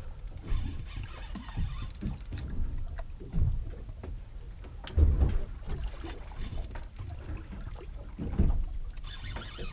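Small boat rocking at sea: irregular low thumps and rumble of water slapping against the hull, with wind on the microphone.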